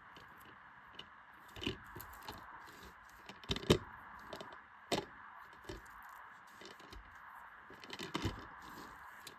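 Hands handling a plastic DVD case and its packaging: scattered clicks, taps and crinkles, the loudest knock about three and a half seconds in, over a steady hiss.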